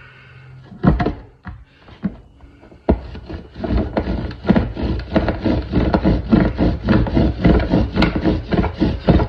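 Bow drill at work: a mule fat spindle twisted in a pinyon pine fireboard under a quartz bearing block by a sawing bow, rubbing in regular back-and-forth strokes about two a second from about three seconds in, as the cold set is warmed up. A couple of knocks come about a second in, before the strokes start.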